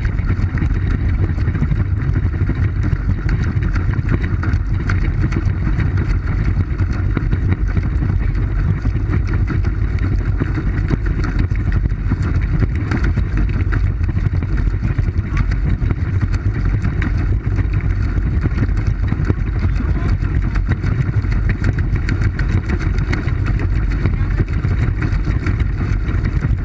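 Steady low rumble and water noise of a pedal boat moving along, picked up by a camera mounted on its hull.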